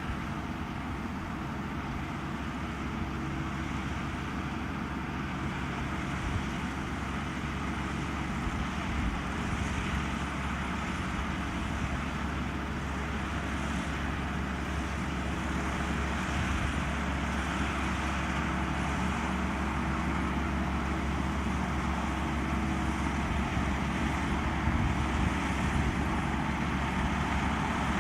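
Kubota 128-horsepower six-row combine harvester running: a steady low engine hum under a broad wash of machinery noise, growing gradually louder.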